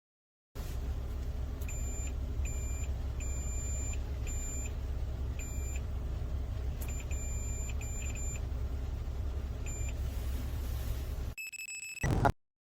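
About nine short electronic beeps at irregular intervals over a steady low hum, ending with a sharp knock just before the sound cuts off.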